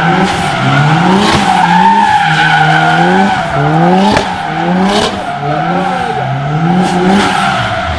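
Tyres squealing continuously as a modified car drifts or spins, while its engine revs up and drops back again and again, about once a second, with a few sharp cracks.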